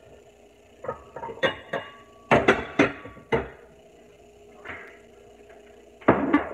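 Kitchen clatter: a quick run of knocks and clinks of dishes and utensils for a couple of seconds, then one louder clatter near the end.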